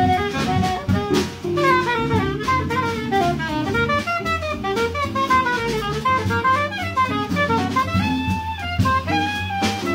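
Live jazz: a saxophone solos in quick rising and falling runs of notes over a drum kit with cymbals.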